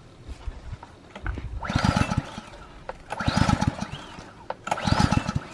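Small gas engine on a pressure washer being pull-started three times. Each pull cranks it briefly with a fast chugging, and it doesn't catch. The owner says the washer has had it.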